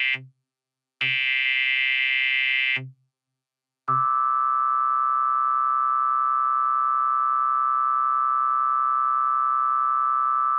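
Emergency Alert System broadcast tones. A burst of harsh, buzzy digital header data ends at the start and a second burst of about two seconds follows. About four seconds in, the steady two-tone EAS attention signal begins and holds without change.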